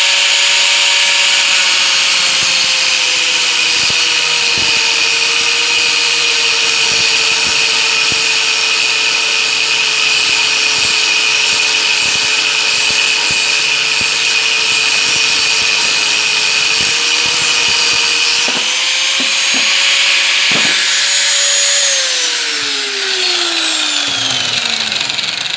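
Angle grinder running at full speed while cutting through microwave fan motors to separate the copper windings from the steel core; its whine dips a little under load. About three-quarters of the way through it is switched off and winds down in a falling whine.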